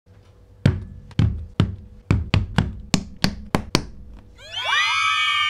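About ten knocks of paint bottles and tubes being set down one after another on a wooden tabletop, coming at uneven intervals over about three seconds. A little after four seconds in, many voices rise together into a cheer.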